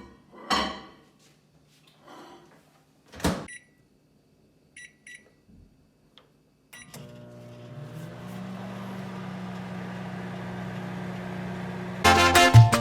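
Microwave oven being shut and started: a couple of knocks as the door closes, two short keypad beeps, then the oven running with a steady hum. Music comes in near the end.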